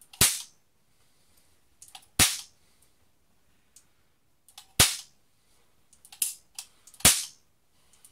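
Toy cap revolver firing ring caps: four sharp bangs at uneven intervals of about two to two and a half seconds. Lighter clicks of the hammer and cylinder come between the shots.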